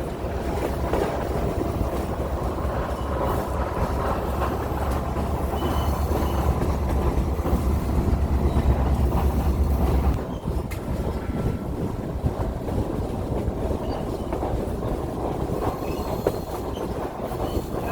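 Heritage excursion train's passenger car rolling along the track, a steady rumble and rattle of the wheels and car; the deepest part of the rumble drops away abruptly about ten seconds in.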